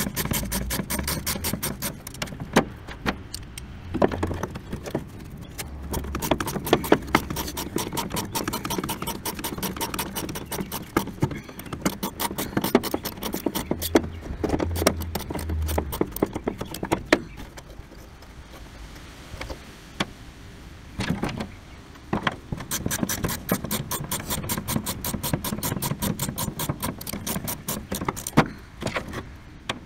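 Hand ratchet wrench clicking in long, fast runs as it is swung back and forth on a rusty bolt. There is a quieter stretch in the middle and a few louder metal knocks.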